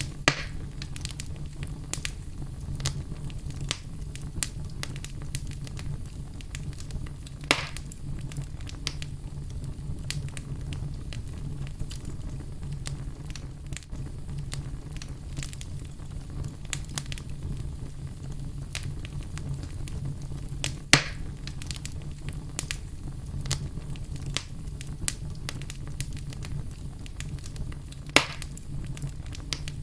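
Wood fire burning in a fireplace: a steady low rumble of flames with frequent small crackles and a few louder pops.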